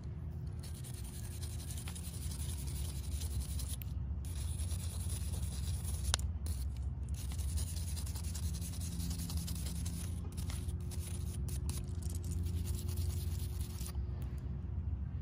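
A stiff-bristled golf club brush scrubbing the grooved steel face of a wedge, cleaning dirt out of the grooves: a rapid, steady scratching with a few brief pauses, stopping about a second before the end.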